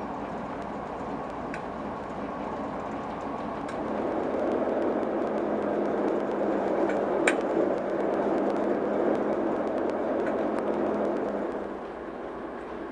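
Class 08 diesel-electric shunter's English Electric six-cylinder diesel engine running steadily with a low hum. It swells louder from about four seconds in and drops back near the end, with a sharp click about seven seconds in.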